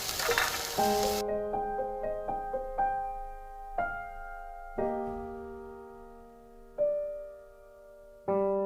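Slow solo piano background music: single notes and chords ringing and fading, growing sparser, with a fresh chord near the end. For about the first second a sizzling sound runs under the music, then cuts off suddenly.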